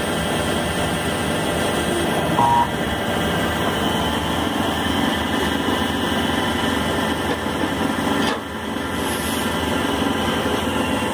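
Syil C6-B mini CNC lathe running, its spindle turning a brass workpiece under the tool, a steady machine sound made of many steady tones. A brief higher tone comes about two and a half seconds in, and the sound dips briefly about eight seconds in.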